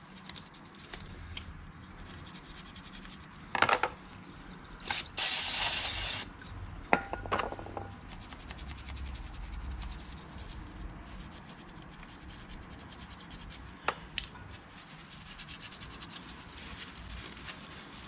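Small brush scrubbing brake dust off a motorcycle brake caliper's metal pad spring in quick rasping strokes. A few sharp metallic clinks and knocks come from the part against the tool.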